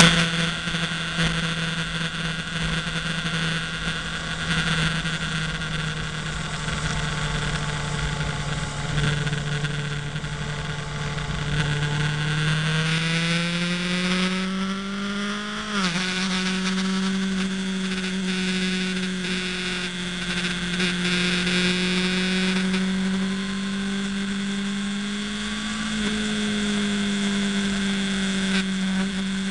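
Motorcycle engine running steadily while riding, over a steady rush of wind and road noise. Its pitch climbs smoothly a little before halfway as the bike speeds up, then drops sharply for a moment and picks up again, with a smaller dip near the end.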